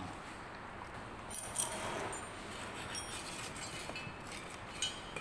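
Moulding sand being spread by hand and levelled off across the top of an aluminium moulding flask with a wooden strike-off bar: soft scraping and rustling of sand, with scattered light clinks and ticks.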